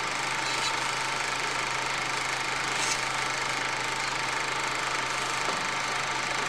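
Steady mechanical running noise with a constant hum, unchanging throughout.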